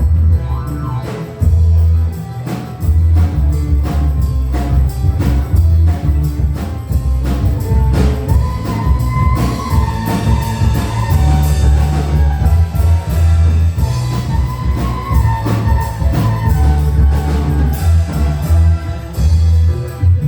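Dangdut band (orkes melayu) playing live: heavy bass and a steady drum beat, with a wavering melody line coming in about halfway through.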